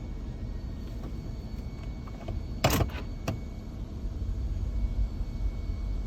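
2010 GMC engine running with a steady low rumble. There is a loud sharp clack about two and a half seconds in and a smaller click half a second later.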